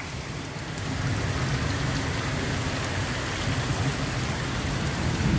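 Heavy rain pouring down: a steady, dense hiss with a low rumble underneath.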